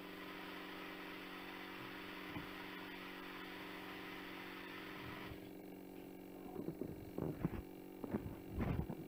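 A home audio recording played back: a steady hum with hiss that cuts off about five seconds in, then irregular low thumps and knocks.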